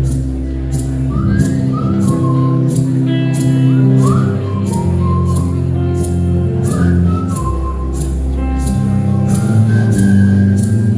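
Live band playing an instrumental break of a slow country song: sustained bass notes, light high ticks about twice a second keeping time, and a lead melody that slides up and down between notes.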